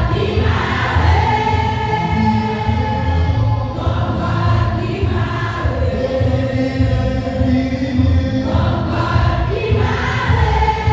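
Church choir singing a hymn, with several voices holding notes together over instrumental accompaniment with a pulsing low bass.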